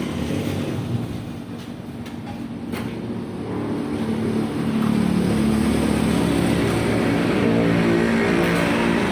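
Honda CBR150R single-cylinder engine running through an aftermarket Akrapovic-style muffler. It is revved up from about three seconds in and held at a steady, louder note.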